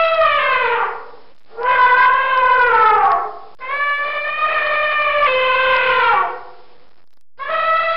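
Elephant trumpeting: a series of long calls, each holding a steady pitch and then sliding down at its end. One call ends about a second in, two more follow, and a fourth starts near the end.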